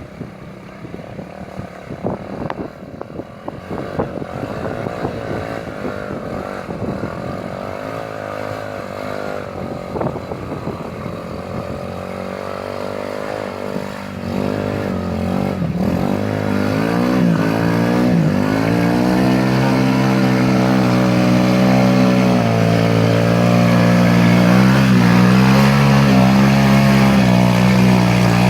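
ATV engine running off-road. At first it is rough and faint, with many knocks and rattles. From about halfway it grows louder, its pitch rising and falling as it revs, and it settles into a steady, louder run near the end.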